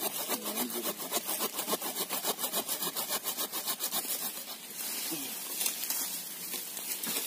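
Rapid, even rasping strokes, several a second, then rougher rustling and tearing as a serut (Streblus asper) stump is pulled with its roots out of the soil.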